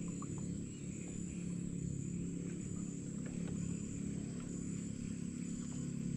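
A small boat engine running steadily at an even, low pitch, with a faint high insect trill pulsing on and off above it.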